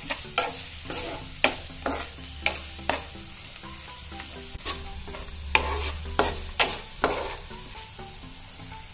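Chopped onion and green chillies frying in oil in a non-stick pan, sizzling steadily while a steel ladle stirs them, with irregular clicks and taps of the ladle on the pan.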